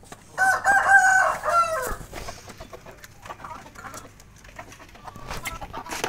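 A rooster crowing once, a drawn-out call about a second and a half long that drops away at the end, followed by faint, scattered sounds from hens feeding.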